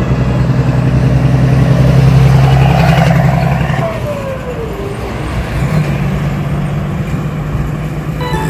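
Heavy cab-over diesel truck with a drawbar trailer driving past: a steady low engine note, loudest about two to three seconds in, and a whine that falls in pitch as the truck goes by. A second, quieter steady engine note follows in the second half.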